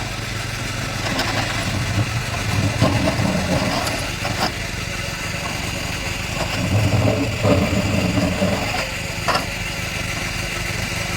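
JCB backhoe loader's diesel engine running steadily, swelling louder twice, with a couple of sharp knocks.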